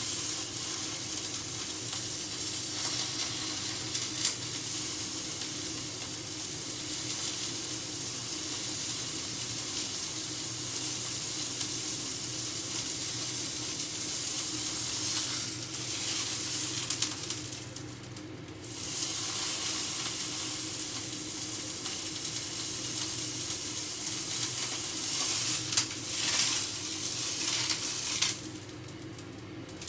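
Fat-side edge of a steak sizzling in a very hot dry pan as the fat renders out. The sizzle is steady, dips briefly about two-thirds of the way through, and falls off again near the end.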